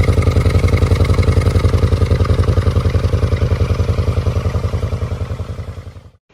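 Kawasaki VN 1500 Drifter's V-twin engine running with a steady, even low pulse, fading out near the end.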